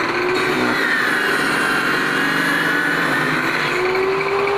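Table saw with a circular blade running under load, ripping a long strip of wood. A loud, steady motor whine that wavers in pitch as the wood is fed through.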